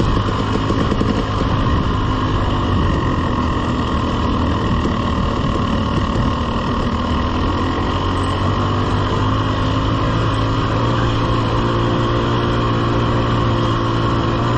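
Dirt bike engine running at a fairly steady speed under way on a trail.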